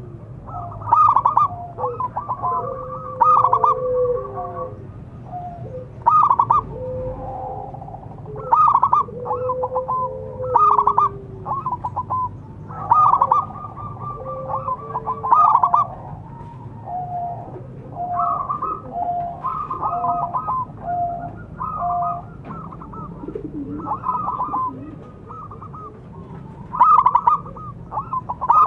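Zebra dove cooing: a series of repeated trilled phrases, each about a second long, coming every two seconds or so, with softer lower notes between them.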